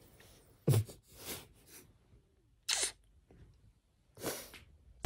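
Soft sounds of a person close to the microphone: a brief low grunt about a second in, then a few short breathy puffs.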